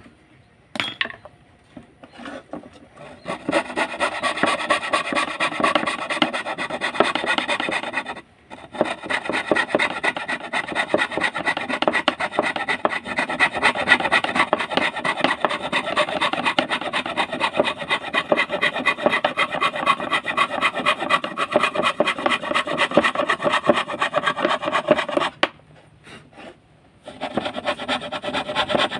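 Hand fretsaw cutting wood with rapid back-and-forth rasping strokes, stopping briefly about eight seconds in and again for a second or two near the end before starting again.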